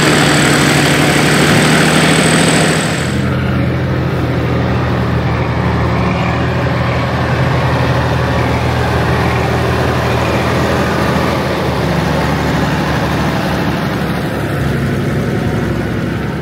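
Kirovets K701's YaMZ-240 V12 diesel engine running steadily. A high whine stops about three seconds in, and the engine note drops slightly at the same point.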